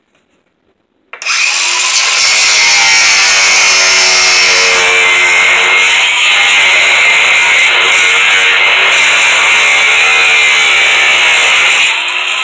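Power tool cutting into an aluminium sliding-door track, starting suddenly about a second in and running steadily, with a brief dip near the end.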